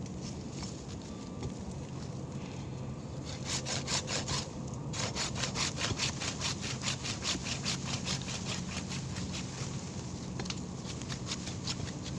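Hand saw cutting into the wood of a serut tree in quick, even back-and-forth strokes, about five a second. The strokes begin a few seconds in, pause briefly, and thin out near the end.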